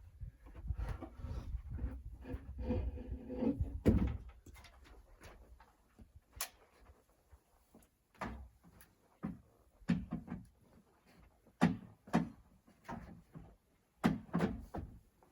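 Knocks and thuds on wood: about four seconds of low rumbling, shuffling handling noise ending in one loud thud, then single sharp knocks at uneven spacing of about half a second to a second.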